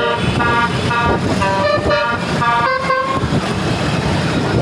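Indonesian telolet bus horn playing a quick melody of short notes that change pitch every fraction of a second, over the bus's running noise; the horn stops about three seconds in.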